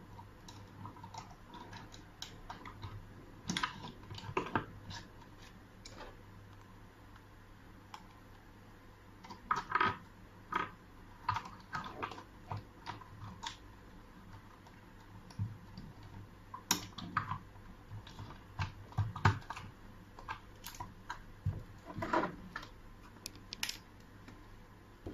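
Irregular light clicks and knocks of a mechanical push-button door lock's parts being handled and fitted together, coming in scattered short clusters.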